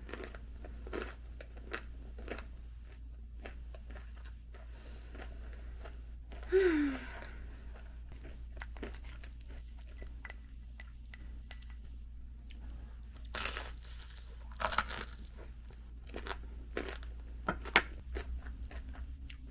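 Close-up chewing and crunching of crispy deep-fried ukoy, shrimp and vegetable fritters, with irregular crisp crunches throughout. A short hummed "mm" of enjoyment comes about six and a half seconds in.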